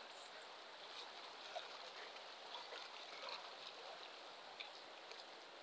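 Faint, steady rush of inlet water washing and swirling against jetty rocks, with a few small splashes and ticks.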